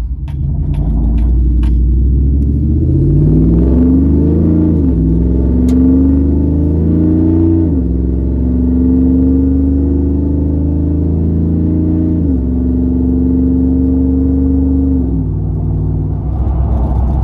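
A 2012 Chevrolet Silverado's 5.3-litre LS V8 accelerating, heard inside the cab. The engine note climbs and drops four times as the transmission upshifts. It is running on E85 with no misbehaviour.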